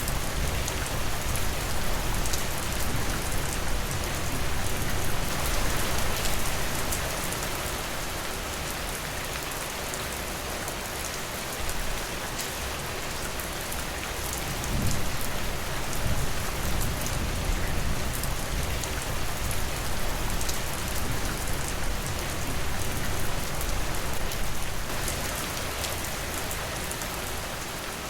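Steady rain falling, with many small drop ticks over an even rushing wash that swells slightly now and then.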